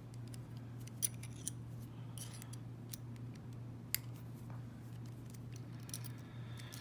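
Scattered light metallic clicks and scrapes of an Allen wrench and small internal parts being worked out of a heavy Federal padlock during disassembly, over a steady low hum. The sharpest clicks come about a second in and about four seconds in.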